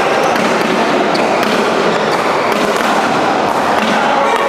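Badminton play in a sports hall: sharp racket strikes on the shuttlecock and scattered impacts over a steady, loud din of play from the surrounding courts.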